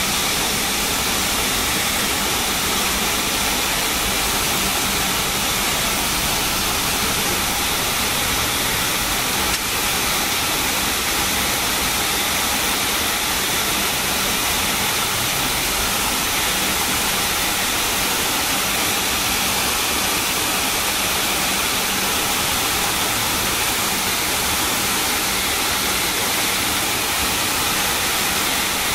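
Steady hissing cabin noise inside a McDonnell Douglas MD-80 taxiing, its two rear-mounted Pratt & Whitney JT8D turbofans running at idle thrust, with a faint low hum beneath.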